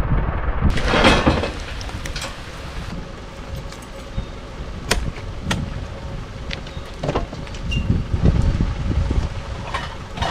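Rain with wind gusting over the microphone, rumbling unevenly, with a brief loud surge about a second in and a few sharp knocks.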